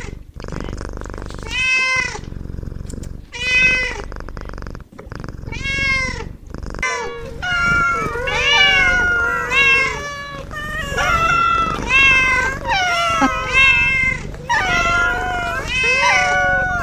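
Kittens meowing: single high meows about every two seconds at first, then from about seven seconds in several meows overlapping at different pitches, almost without a break.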